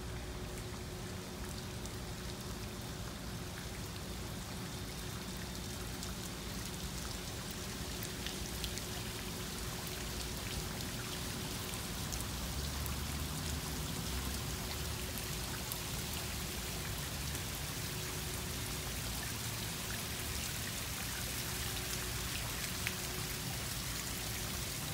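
Water from an outdoor stone fountain splashing and pattering steadily into its basin, with a faint steady hum underneath that fades out near the end.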